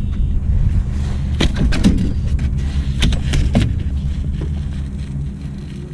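Clicks and knocks of fishing gear and a plastic tackle box being handled in a pickup truck's bed, in two short clusters about a second and a half in and about three seconds in, over a steady low rumble.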